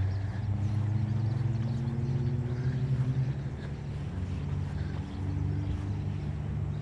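Low hum of motor vehicle engines from road traffic. The pitch rises slowly through the first three seconds or so, then a steadier hum carries on.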